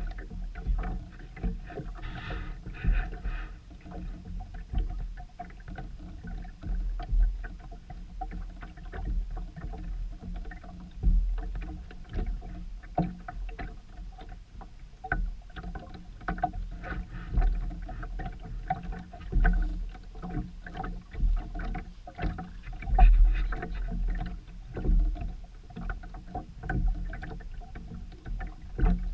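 Sound aboard a sailboat under way: a steady low rumble with irregular buffeting surges.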